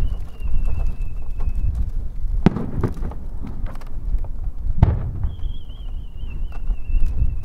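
Aerial fireworks: a whistling shell climbs with a wavering whistle that slowly falls in pitch. Two sharp booms of shells follow about two and a half and five seconds in, with scattered crackles. A second whistle begins soon after the second boom.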